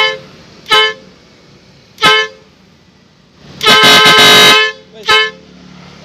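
Pair of trumpet horns sounding a two-tone chord in four blasts: two short toots, a long blast of about a second, then one more short toot. The horns are being tested while they are fitted to the truck, set up to sound like a Hino RK horn.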